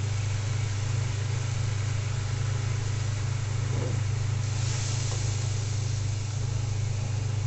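A steady low motor-like hum under a faint sizzle from a turmeric-and-chili paste with water simmering in a karahi as a wooden spatula stirs it. The hiss grows briefly stronger about five seconds in.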